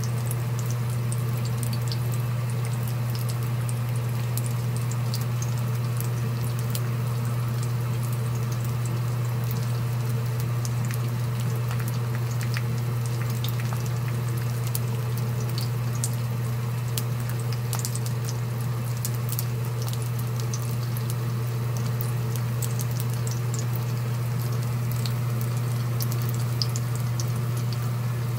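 Battered pork pieces for guobaorou shallow-frying in hot oil, the oil sizzling steadily with many small crackles. A steady low hum runs underneath.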